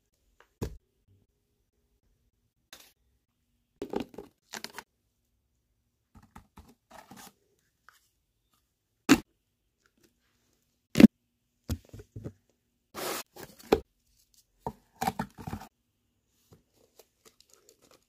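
Cardboard pieces of a homemade cardboard coffee machine being handled and pushed: irregular scrapes, rustles and knocks. The loudest are two sharp knocks around the middle.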